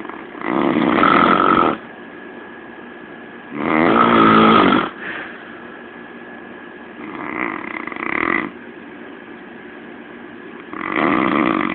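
A man snoring in his sleep: four long snores, each lasting about a second, coming roughly every three and a half seconds.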